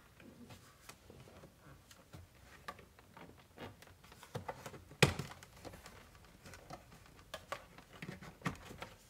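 Hard plastic clicks and taps as the trim bezel around the ignition key cylinder is worked loose from the dashboard by hand, with one sharp snap about five seconds in.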